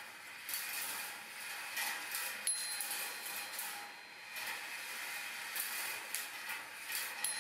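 Stainless-steel rolling ball sculpture running: 1-inch glass marbles clicking and clinking against each other and the stainless wire track as they queue into the motorized roller chain lift, with the steady running of the chain lift underneath. A faint high ring sounds briefly about two and a half seconds in and again near the end.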